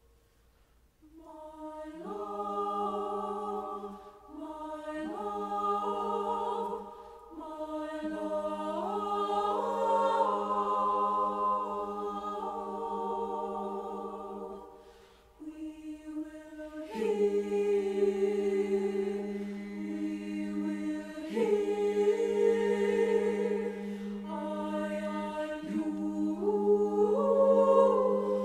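Mixed high school choir singing a cappella in sustained chords, entering about a second in after a brief silence. The singing moves in phrases with short breaks and grows louder near the end.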